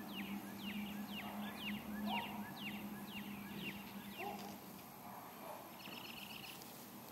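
A songbird singing a run of clear, repeated down-slurred whistled notes, about two a second, then stopping; a short buzzy trill follows near the end.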